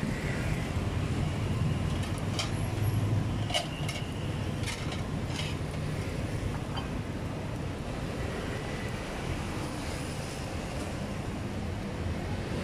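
Steady low rumble of street background noise. A handful of light, sharp metallic clicks fall between about two and five seconds in, from tongs turning skewers on the wire grill.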